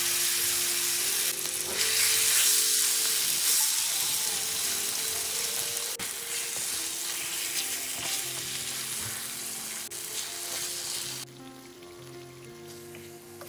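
Marinated mutton sizzling loudly as it fries in oil over high heat in a pan. The sizzle turns softer about eleven seconds in.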